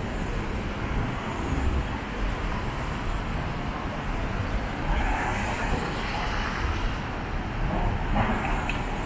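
City street traffic: a steady rumble of cars going by, swelling louder about five seconds in and again near the end as vehicles pass.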